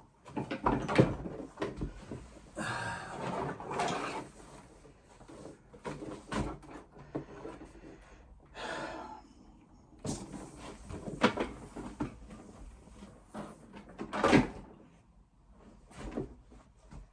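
Irregular knocks, clicks and rustles of hands working with cable and fittings, the loudest knocks about a second in, about eleven seconds in and about fourteen seconds in.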